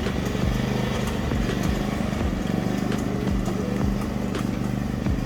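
A farm vehicle's engine running steadily as it drives along, with scattered knocks and rattles.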